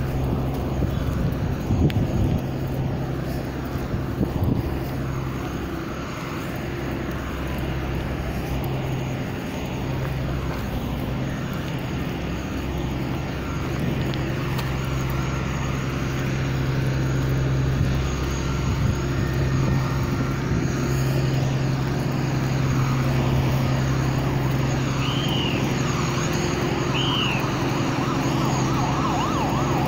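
Diesel engine of heavy road-works machinery running steadily, a low continuous hum. Near the end come two short rising-and-falling siren whoops.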